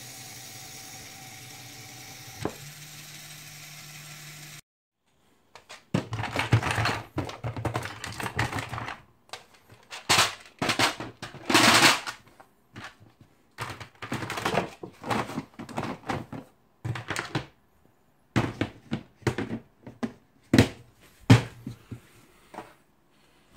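Small electric motor of a LEGO Technic bulldozer model running with a steady low hum, stepping up slightly in pitch a couple of seconds in and stopping. Then a long run of irregular plastic clattering and rattling bursts: LEGO parts and gears knocking as the model works.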